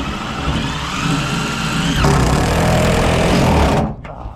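A motor-driven machine running under load with a whine that rises and then drops. It gets heavier and then stops abruptly near the end.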